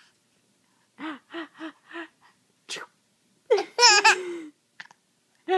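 A 19-week-old baby laughing: four short, even bursts of laughter about a second in, then a louder, high squealing laugh past the middle.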